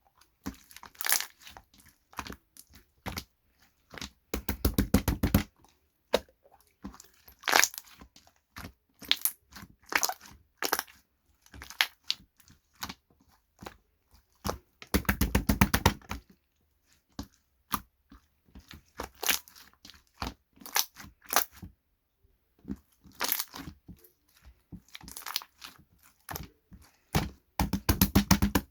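Crunching and crackling from a crunchy material worked by hand, in quick runs of sharp pops with three denser, louder bursts of crackling.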